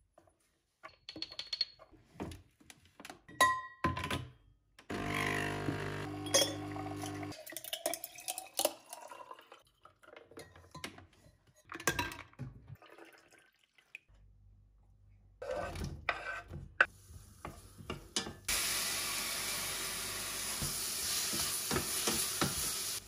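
Clicks and metal clinks as the portafilter is locked into a De'Longhi espresso machine, then the machine's pump buzzing steadily for about two seconds while it brews. Near the end, after a cut, food sizzling in a saucepan on an induction hob, a steady hiss that starts suddenly.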